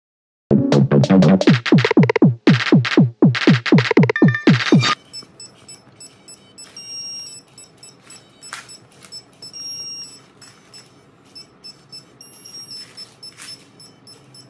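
Loud electronic synth sting of rapid falling-pitch swoops, about five a second, lasting some four seconds and then cutting off. After it come faint short high beeps and scattered clicks.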